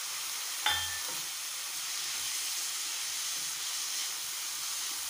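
Chopped chicken and vegetables with freshly added capsicum sizzling in ghee in a nonstick kadai, stirred with a wooden spatula: a steady frying hiss. Just under a second in there is one sharp clink with a brief ring.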